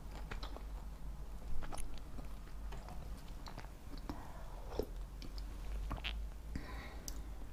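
Quiet chewing and eating sounds as a person tastes a spoonful of hot beef-and-rice soup, with scattered small clicks over a steady low hum.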